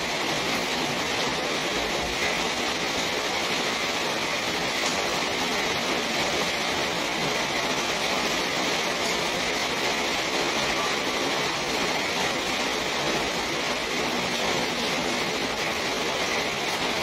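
Steady rain falling, an even hiss of drops that neither builds nor eases.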